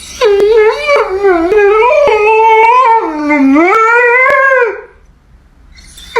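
A dog howling: one long, wavering howl whose pitch slides up and down and breaks off about five seconds in. A new howl begins right at the end.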